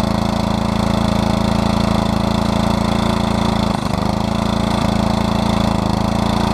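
Small gasoline engine with a freshly cleaned carburetor running steadily and smoothly at idle, with a brief stumble about four seconds in.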